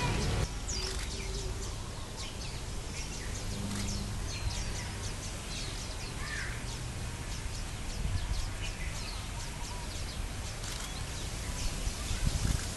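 Birds chirping and calling outdoors: many short, high calls scattered throughout, over a low steady rumble.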